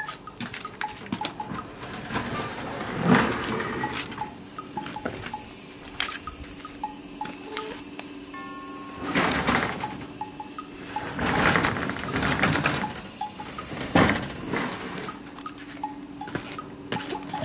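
Steady high-pitched insect chorus that cuts off suddenly near the end, with a few dull knocks along the way.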